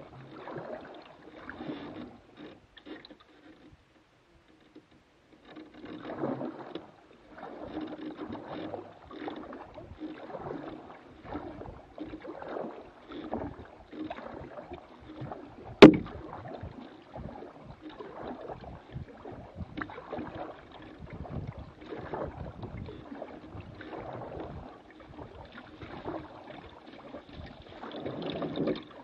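Paddle strokes splashing and dripping in calm river water, with light knocks against the small plastic boat's hull, in an uneven rhythm that pauses for a couple of seconds near the start. A single sharp knock just past the middle is the loudest sound.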